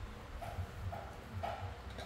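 A monkey chewing a raw green mango, soft crunches coming about twice a second.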